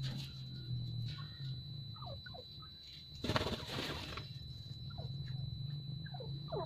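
A small group of grey francolins giving short, soft, falling chirps, with a brief flurry of wing-flapping and scuffling a little after three seconds in.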